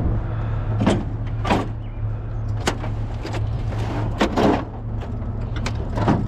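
Scrap being shifted and rearranged in a loaded vehicle: a series of about eight irregular knocks and clunks over a steady low hum.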